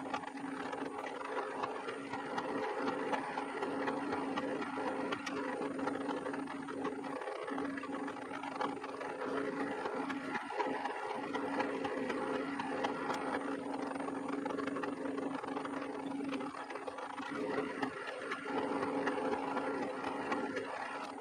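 Metal lathe running with its chuck spinning, with a steady gear noise from the headstock's repaired bull gear.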